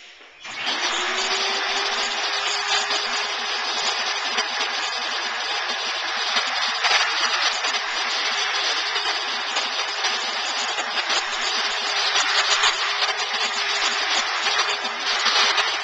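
Vacuum cleaner switching on about half a second in, its motor rising briefly to a steady whine, and running with a steady rush of suction as its wand clears concrete dust out of freshly drilled anchor holes in a concrete floor. It cuts off at the end.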